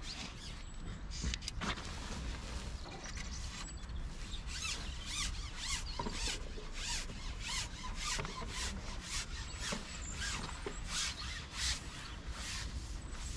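Long carbon fishing pole being pushed out hand over hand, sliding through the hands in a run of short rubbing swishes, several a second.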